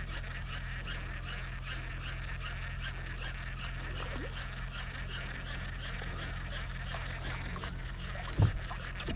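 A chorus of frogs makes a dense, rapid ticking over a steady low hum. A single dull knock comes near the end.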